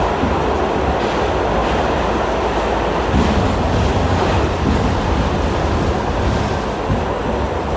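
Inside a New York City subway car on a D express train running at speed through the tunnel: the steady noise of wheels on rails and the car in motion.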